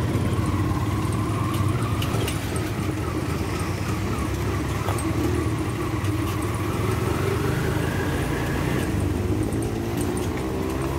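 Small engine of a three-wheeled motorcycle taxi (mototaxi) running steadily on the move, heard from inside the passenger cab with road noise.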